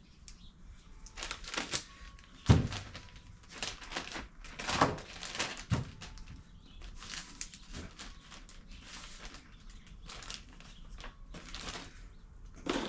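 Small metal brake parts, wheel cylinders and their pins, being handled and set down on a workbench: scattered clicks and knocks with rustling, the loudest knock about two and a half seconds in.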